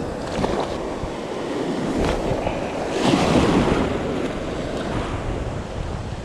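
Ocean surf breaking and washing over the beach, swelling louder about three seconds in, with wind on the microphone.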